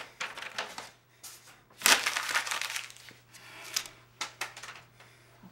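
Papers and desk clutter being rummaged through and crumpled: a string of crinkling rustles with a few sharp clicks, loudest about two seconds in.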